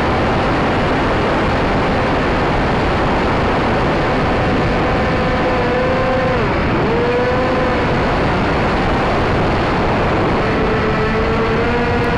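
Wind rushing over the onboard camera microphone of a Firebird Stratos RC plane in flight, with a faint whine from its electric motor and propeller. The motor's pitch dips sharply about six and a half seconds in, then recovers and holds steady.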